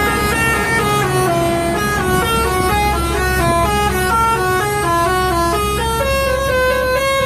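Bus telolet horn playing a rapid tune of short stepped notes, several pitches sounding together, settling about six seconds in on a long held chord. A low engine rumble runs underneath.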